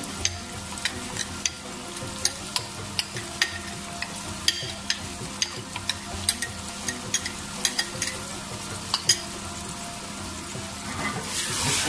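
Mixed vegetables (potatoes, peas, carrots and tomatoes) sizzling in a pan as yogurt is poured over them, with frequent irregular small pops. The sizzle grows louder near the end.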